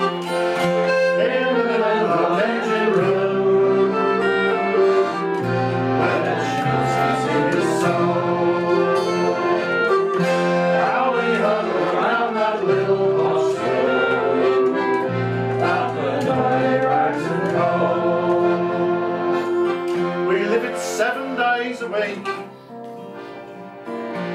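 Instrumental break of a folk song played on acoustic instruments between verses. A melody of long held notes runs over bass notes that change every couple of seconds, and it eases off near the end.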